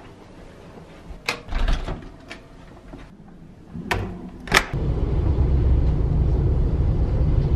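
A few sharp clicks and knocks, among them a hotel door's lever handle being pressed and the door shutting about four seconds in. Then a steady low rumble: a passenger train running, heard from inside the carriage.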